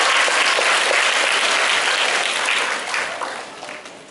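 Audience applauding, dense steady clapping that dies away after about three seconds.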